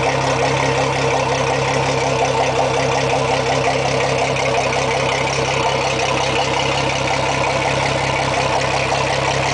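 Mercury Verado 250 hp outboard engine idling steadily, with no change in revs.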